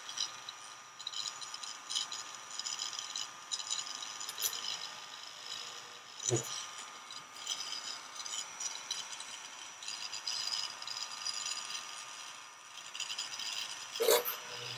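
Small hand-held electric mini drill with a 0.3 mm bit boring holes in a plastic model's deck: a faint steady whine with an intermittent scratchy rattle as the bit cuts, and a short knock about six seconds in.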